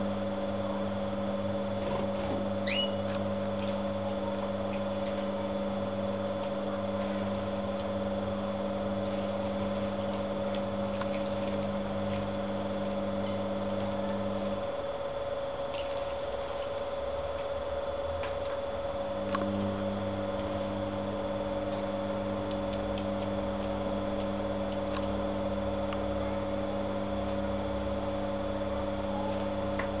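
Steady electrical hum, like a small motor, over a constant higher tone. The lower hum cuts out about fifteen seconds in and comes back about four seconds later. A faint short chirp about three seconds in.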